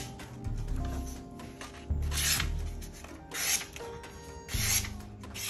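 A freshly sharpened kitchen knife slicing through paper in about four short rasping cuts, a test of the edge's sharpness. Quiet background music underneath.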